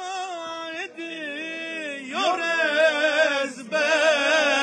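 A man's voice singing a Turkish folk melody without accompaniment, in long held notes with wavering ornaments, each broken off by a short breath about one, two and three and a half seconds in.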